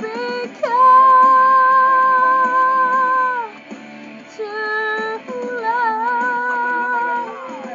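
A woman singing along to backing music. She holds one long high note for about three seconds, then sings a second phrase that ends in a falling glide. The sound comes through a poor phone microphone.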